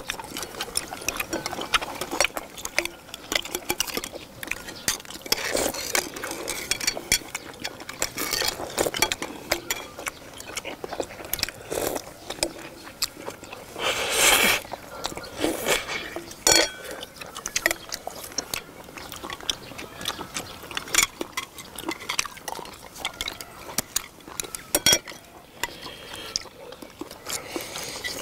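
Eating seafood stew: wet chewing and slurping of shellfish, with frequent clicks and clinks of chopsticks and shells against plates and the pan. A longer slurp comes about halfway through.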